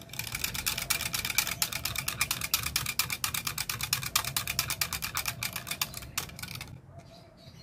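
Wire whisk beating a coconut-milk mixture in a plastic measuring jug: a rapid, continuous clicking and scraping of the wires against the jug's sides. It stops shortly before the end.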